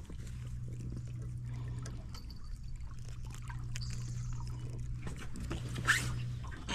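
Water trickling and pouring, with small scattered knocks, over a steady low hum.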